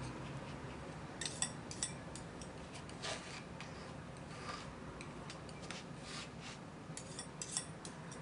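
Faint scraping and light clicking of a palette knife on a paint palette as oil paint is mixed, in irregular clusters of small taps.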